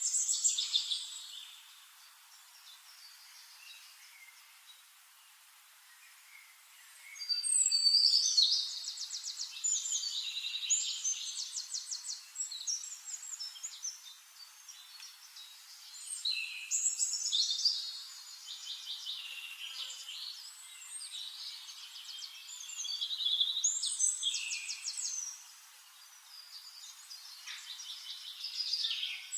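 Songbirds singing in forest: bursts of rapid trilled and chirping phrases, with a near-lull early on and songs returning about seven seconds in and again every several seconds.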